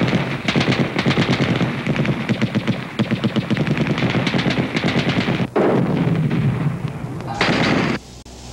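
Automatic gunfire from a film battle scene, rapid shots many per second, with a short break about five and a half seconds in. It ends in a brief loud rush of noise that cuts off suddenly near the end.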